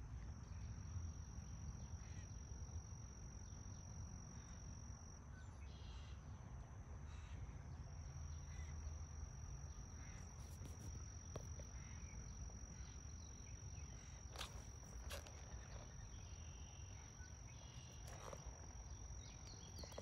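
Faint outdoor ambience: an insect singing one steady high-pitched note, breaking off for a few seconds about five seconds in and then resuming, over a low rumble. A few faint clicks in the second half.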